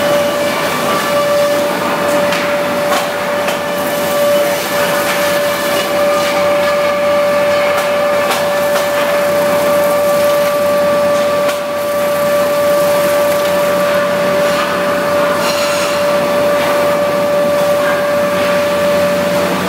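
REX wood planing machine running, a steady whine over steady machine noise.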